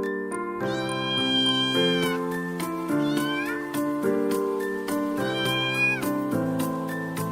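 A domestic cat meowing three times, the first and last meows long and drawn out, over background music with sustained chords.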